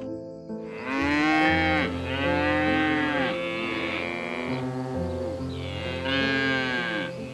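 Cow mooing, several long calls that rise and then fall in pitch.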